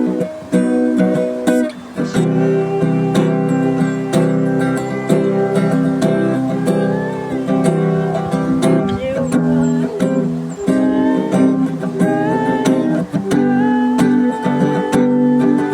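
Acoustic guitar strummed in a steady rhythm, the chords ringing on between strokes, with some single-note melody lines picked over the top.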